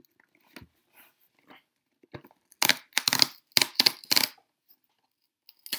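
Perforated cardboard tear strip being ripped off a phone box: faint scratches and clicks at first, then a quick run of about five loud, short rips in the second half, and one more near the end.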